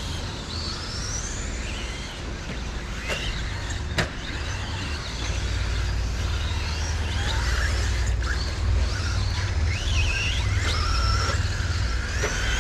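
Several radio-controlled stadium trucks racing, their electric motors whining in overlapping glides that rise and fall as they speed up and slow down. A sharp click comes about four seconds in, and a low rumble runs underneath, heavier after about five seconds.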